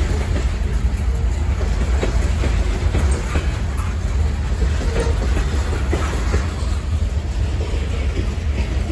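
Freight train's covered hopper cars rolling past: a steady low rumble of steel wheels on the rails with scattered irregular clicks.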